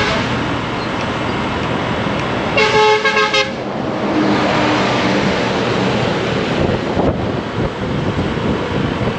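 Steady wind and road noise from a moving motorbike. A vehicle horn honks briefly a little under three seconds in.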